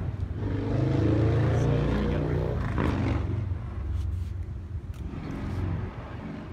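A car engine passing close by, swelling to its loudest a second or two in and then fading, with a smaller second swell a few seconds later.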